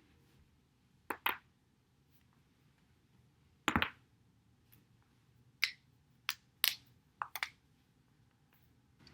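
Spinal joints cracking as the back is rolled over a foam roller: a series of sharp pops, some single and some in quick runs of two or three.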